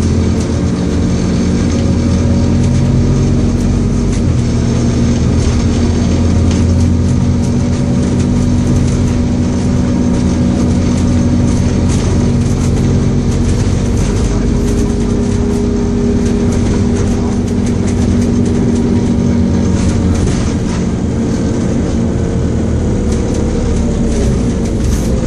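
Inside a Scania OmniCity single-deck bus under way: its diesel engine hums steadily, with the engine note drifting up and down a little as the bus drives. Faint rattles and clicks come from the cabin fittings.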